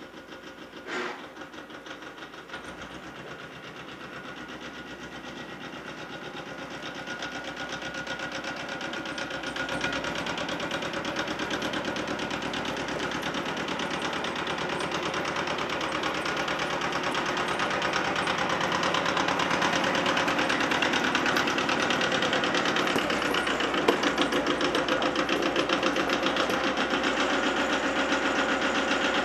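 Yanmar 155D tractor's small diesel engine running with an even rapid chug, growing steadily louder as the tractor is driven closer.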